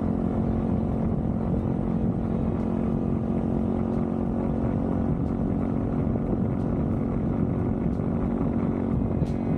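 Small moped-class motorcycle engine running at a steady speed while riding, with heavy wind rumble on the microphone.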